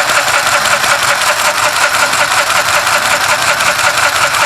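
Elit HSW1-002XT handheld sewing machine, powered by four AA batteries, running without a break as it stitches along a handkerchief. It makes a fast, even, high-pitched mechanical clatter that holds steady.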